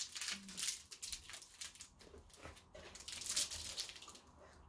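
Plastic wrapper of a Knoppers wafer bar being torn open and crinkled by hand, in a run of crackly bursts, loudest about a second in and again at about three and a half seconds.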